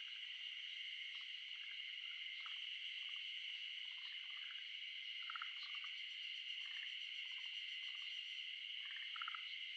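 A steady, high insect chorus drones without pause. Short, scattered low calls come in over it at irregular intervals.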